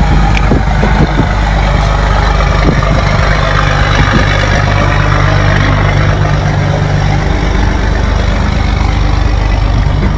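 A large engine idling steadily: a low, even hum under a broad rumble, with a few faint clicks in the first few seconds.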